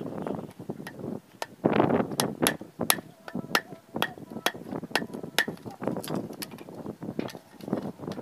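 Machete blade striking bamboo against a wooden log: a run of sharp knocks, roughly two a second, with rougher scraping between strikes.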